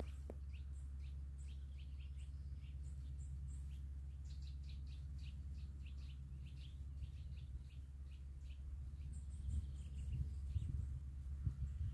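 Small birds chirping in quick short calls, several a second and thickest in the middle, over a steady low rumble that turns gustier near the end.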